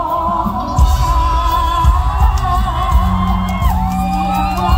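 Live Isan mor lam music: a band with a heavy bass beat under a high melody line, and a woman singing.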